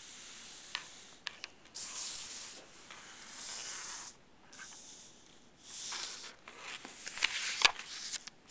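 Paper strips and construction paper being slid and shuffled across a tabletop by hand: uneven swells of rubbing, rustling noise, with a few light clicks.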